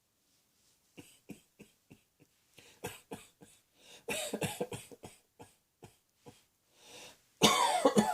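A person coughing. After about a second of quiet comes a string of short, quiet coughs and throat sounds, then a louder cluster of coughs in the middle, and near the end a loud coughing fit begins.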